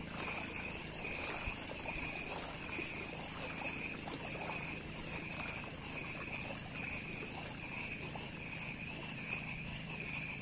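Outdoor river ambience heard from a small boat: a steady high-pitched drone that pulses evenly about one and a half times a second, over a low rumble of wind and water.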